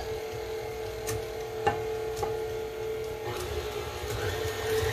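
KitchenAid tilt-head stand mixer running steadily with a constant motor hum and a low rumble, beating creamed butter and sugar, with a few light clicks. About three seconds in the sound thickens as eggs slide into the turning bowl.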